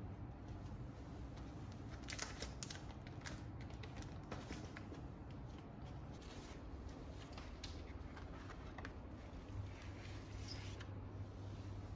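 Faint scattered light clicks and rustles, like small things being handled, over a steady low hum.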